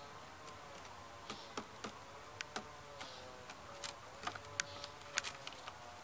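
Irregular sharp clicks and ticks, sparse at first and coming thicker in the second half, the loudest a little after five seconds in.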